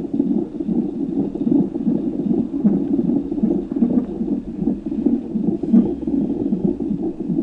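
Fetal heartbeat picked up by a fetal Doppler monitor: a rapid, steady pulsing, low to middle in pitch.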